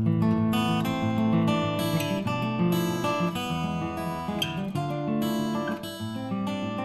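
Background music: an acoustic guitar strumming chords at an even pace, growing a little softer toward the end.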